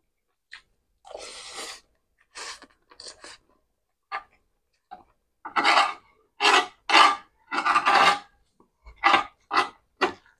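Metal spoon scraping across a non-stick pan, scooping food in a series of short rasping strokes, the loudest bunched together about halfway through.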